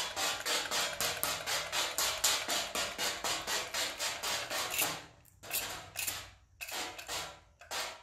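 Water squirted in quick short pulses from a pressure spray bottle set to a fine stream, spattering onto a painted car hood. About five or six squirts a second for roughly five seconds, then a few slower, separate ones.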